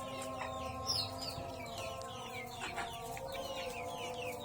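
Chickens clucking with quick, high falling chirps several times a second, over a steady background hum.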